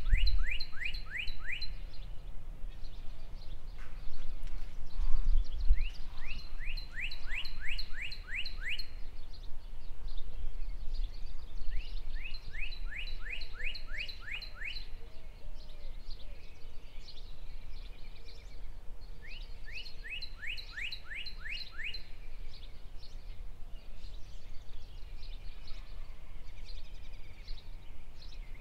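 Dawn birdsong: one songbird repeats a phrase of about eight quick rising whistled notes, once every six or seven seconds. Softer chirps from other birds and a low rumble sit underneath.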